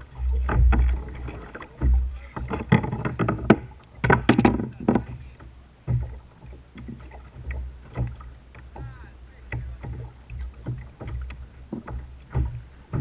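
Water lapping and slapping against a kayak hull, with irregular knocks and clatter from handling on board.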